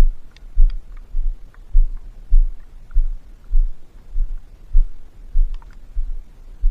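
Footsteps of someone walking: low, even thumps about every half second or so.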